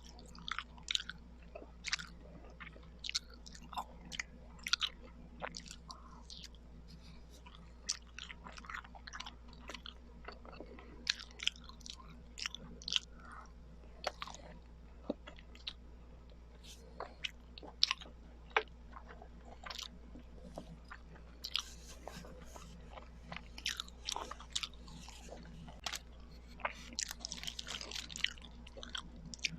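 Close-miked chewing of kakanin, soft sticky Filipino rice cakes, with many irregular wet mouth clicks and smacks.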